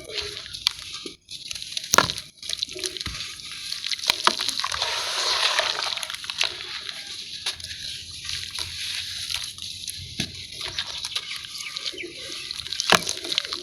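Sand-cement cakes crumbling and breaking apart in water: sloshing and splashing with a steady gritty crackle, louder about four to six seconds in, and two sharp snaps, one near the start and one near the end.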